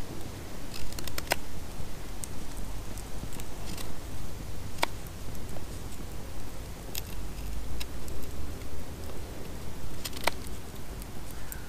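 Knife carving a wooden stick by hand: light cutting and scraping on the wood, with a few sharp clicks spaced several seconds apart.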